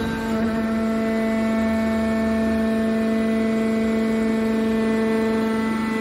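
Hydraulic power unit of an aluminium can baler, its electric motor and pump running with a steady, even hum.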